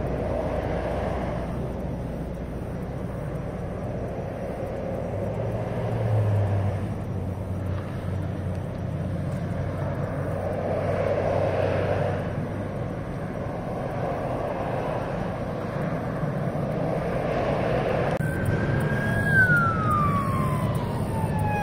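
Traffic passing on the interstate below, the noise of each vehicle swelling and fading every few seconds. About three seconds before the end, an emergency vehicle siren starts, one slow wail falling in pitch.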